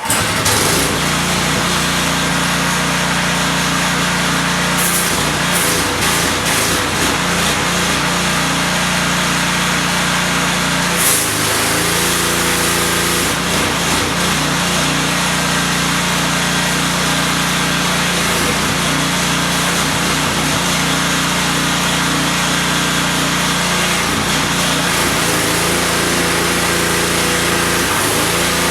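DeWalt 3600 psi gas pressure washer engine starting up and then running steadily. Its note dips and shifts briefly about eleven seconds in and again near twenty-four seconds.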